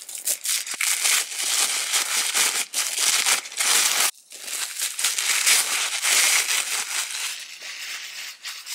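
White packaging wrapped around a cosmetic pouch crinkling and rustling as it is handled and pulled off, with a brief break about four seconds in.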